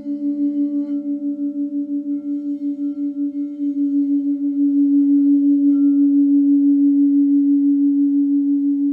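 Crystal singing bowls sounding a sustained low tone with a steady pulsing wobble, growing louder about four seconds in.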